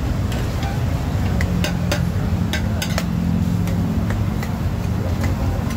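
Two metal ladles clinking and scraping against a large wok as a heap of kuey teow noodles is stir-fried, a dozen or so sharp clanks at uneven intervals over a steady low rumble.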